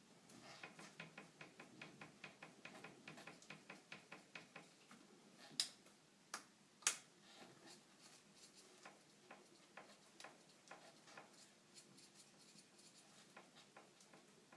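Fox Float CTD air rear shock knocking as it is worked up and down: a quick run of small clicks, about four a second, then three louder knocks and sparser faint clicks. The owner traced the clunk to play in the piston bushing.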